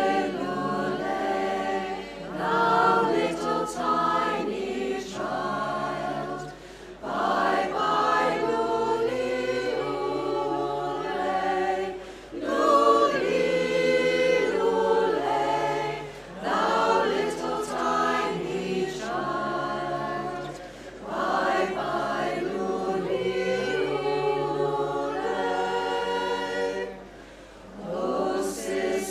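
Women's choir singing a cappella, in phrases of a few seconds with brief dips in between.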